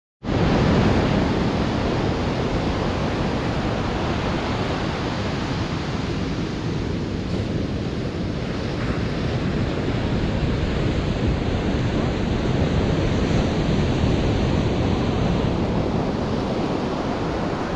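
Ocean surf breaking and washing up a sandy beach: a steady rush of waves that cuts in just after the start.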